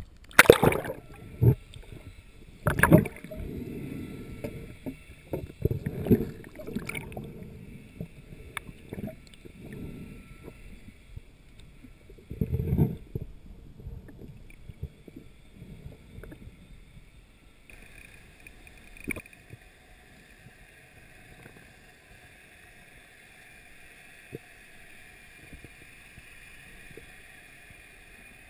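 Lake water splashing and sloshing against a camera at the surface, with several loud splashes in the first half. Then, underwater, it turns to a muffled quiet with a faint steady high hiss.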